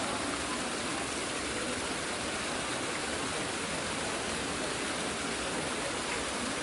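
Steady ambience of a busy tourist site: an even wash of crowd murmur and distant noise with no distinct events.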